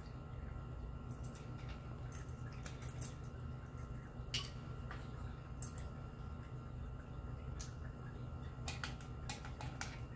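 A cat eating dry food from a plastic pegboard puzzle feeder: scattered small crunches and clicks at irregular intervals, a quick cluster of them near the end, over a low steady hum.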